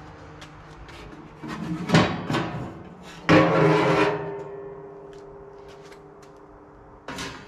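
Metal parts of a pellet smoker grill being handled. A few knocks and rattles come first, then about three seconds in a loud metallic clang that keeps ringing for several seconds, and another short knock near the end.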